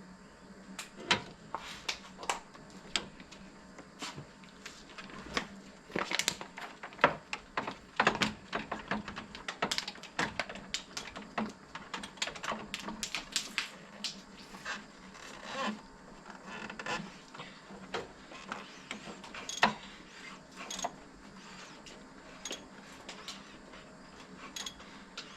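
Scattered sharp clicks and light metallic taps from hand work on the engine, coming in irregular clusters that are busiest in the middle stretch.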